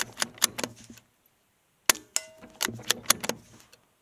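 Suppressed Savage MKII FV-SR .22 LR bolt-action rifle firing subsonic rounds and having its bolt worked: two bursts of sharp metallic clicks and clacks, the second opening with a sharp report about two seconds in, the loudest sound.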